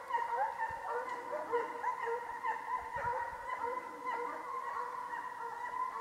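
A pack of scent hounds giving tongue on a hare's trail: many overlapping yelps and bays run together into an unbroken chorus of hound music.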